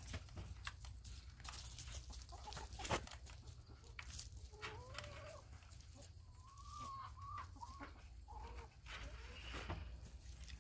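Domestic hens clucking quietly, with a few drawn-out wavering calls in the middle. Scattered light clicks and knocks sound through it, the sharpest about three seconds in.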